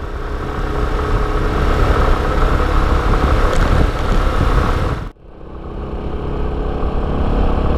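Motorcycle engine running steadily on the road. The sound cuts off abruptly about five seconds in and fades back up, with a second steady engine passage.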